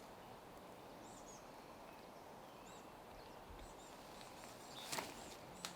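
Faint outdoor ambience with small birds chirping: short, high chirps repeating every second or so. A single brief click about five seconds in.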